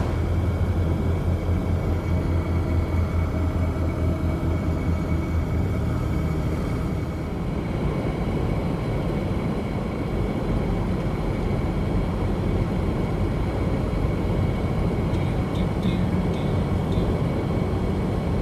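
Steady road and engine noise of a 3rd-generation Toyota 4Runner driving, heard from inside the cabin, with a low hum that is strongest for the first several seconds. A few faint, evenly spaced ticks come in near the end.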